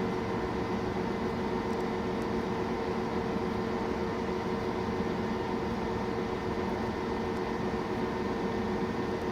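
Steady hum and fan noise from a running Biotage Initiator+ microwave synthesizer, with a few constant tones over an even rush of air.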